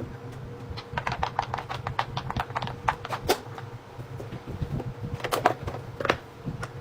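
Fidget toys being handled: a run of quick, irregular clicks and taps starting about a second in, then another cluster around five seconds, over a faint steady hum.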